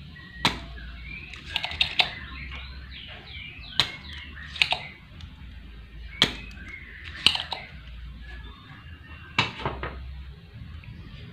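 Sharp, irregular clicks and taps as a soldering iron and hands work on an electric fan motor's winding and metal housing, about eight in all, over a low steady hum. A few faint high chirps come between two and three and a half seconds in.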